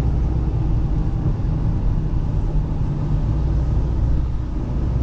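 Steady low drone of engine and road noise inside a moving vehicle's cab at highway speed.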